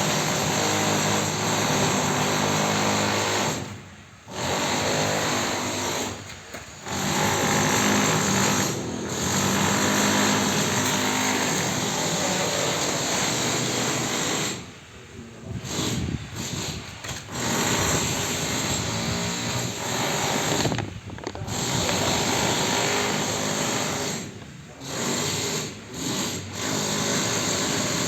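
A small power tool's motor running under load in long spells, stopping briefly about six times and starting again.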